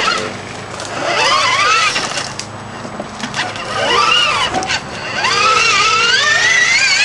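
Electric drive motors and gearboxes of a modified 4x4 Power Wheels Jeep whining, the pitch rising and falling as it pushes over rough ground, with scattered knocks from the wheels and body over bumps.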